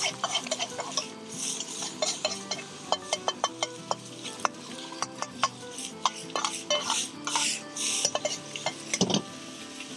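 A metal ladle stir-frying rice in a black wok, with repeated knocks and clanks against the pan and bursts of scraping.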